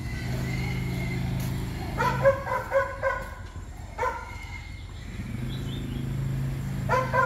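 A quad ATV's small engine running with a steady low hum, while a dog barks in short sharp yaps: a quick run of several about two seconds in, one more at four seconds, and two or three near the end, louder than the engine.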